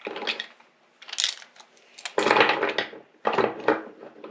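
Metal hand tools being handled and knocked together, in four short clattering bursts, the loudest a little after two seconds in.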